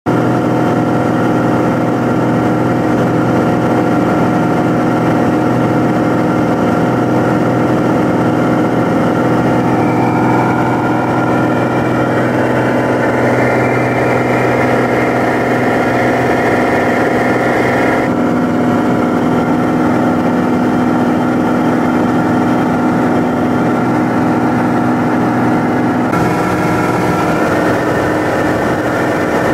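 Steady drone of a light aircraft's piston engine and propeller heard from inside the cabin in flight, the engine running at about 2470 rpm, with airflow noise over it.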